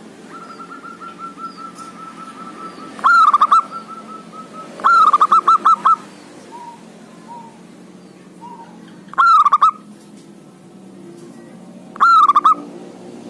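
Zebra dove (perkutut) singing its cooing song: a soft, rapid run of notes first, then four loud bursts of quick, staccato coos.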